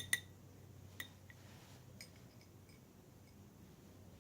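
A spoon clinking against a small dish: two quick clinks at the start, one more about a second in, then a few faint taps.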